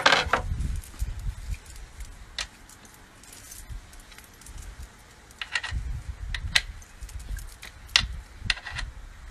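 Scattered small metallic clicks and clinks as a prosthetic leg's metal pylon and adapter are fitted and tightened with a hex key. The loudest clinks come right at the start, over a low handling rumble.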